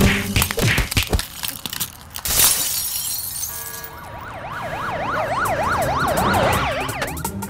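Cartoon sound effects: quick knocks from a scuffle and a glass smash about two seconds in. From about four seconds in, a fast rising-and-falling shop burglar-alarm siren wails until near the end.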